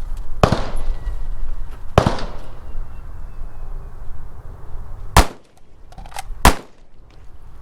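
Four separate gunshots at a shooting range, each a sharp crack with an echoing tail, irregularly spaced: two in the first two seconds, then two more about a second apart near the end.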